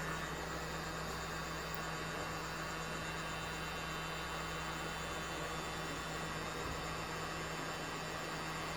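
Steady electrical hum with a faint even hiss, unchanging throughout.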